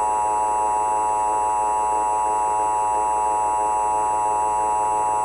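Emergency Alert System attention signal: a steady two-tone alarm at 853 and 960 Hz, loud and distorted, with many extra evenly spaced tones from the daisy-chain audio effect.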